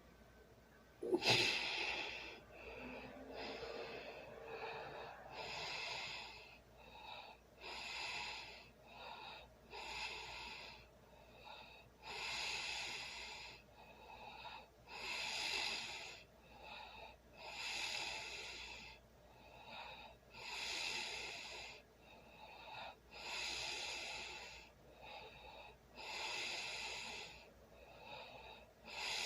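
A sleeping person breathing heavily and noisily, with a breath about every two and a half seconds in a steady rhythm. About a second in there is a louder, sudden snore.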